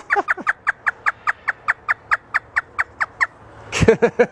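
African grey parrot imitating a hysterical laugh: a rapid string of short, falling 'ha' notes, about five a second, for some three seconds, followed near the end by a louder burst of calls.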